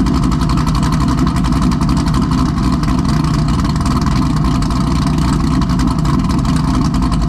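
A 2017 Camaro SS 1LE's V8, fitted with a Texas Speed camshaft, idling steadily.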